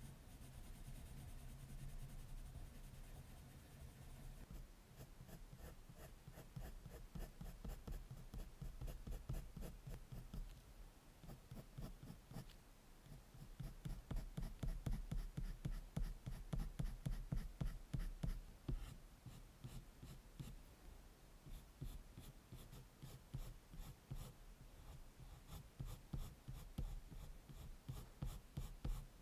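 Prismacolor colored pencil scratching on drawing paper in quick short strokes, hatching fine strands of dog fur. The strokes grow denser and louder about four seconds in.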